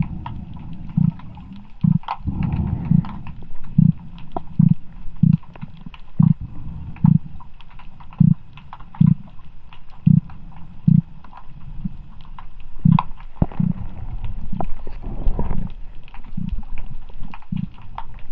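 Striped beakfish grunting: repeated short, low 'guu-guu' grunts, about one a second.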